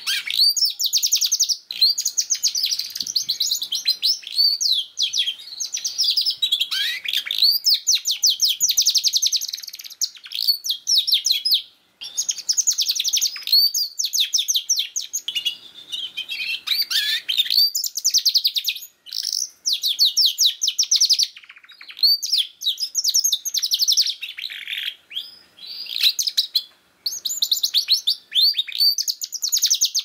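Domestic canary singing a long, fast song of rapid trills and rolls, broken by a few short pauses.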